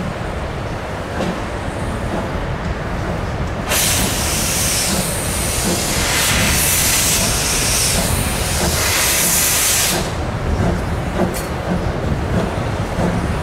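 A narrow-gauge 1922 Vulcan 2-4-0 steam tank locomotive pulls a train away under a steady low rumble. About four seconds in, a loud hiss of steam from its open cylinder cocks starts, surging a few times, and cuts off after about six seconds; the cocks are venting condensed water from the cylinders as the engine gets under way.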